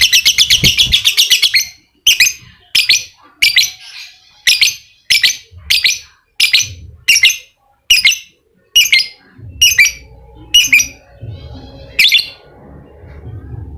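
Lovebird calling shrilly. It opens with a rapid chattering run of sharp notes, the 'ngekek' trill, lasting about two seconds. Single sharp calls follow roughly every half second and stop about twelve seconds in.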